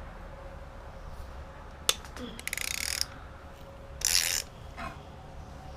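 Hand ratchet wrench clicking in two short bursts, with a sharp metallic click about two seconds in, as bolts are worked loose on the engine.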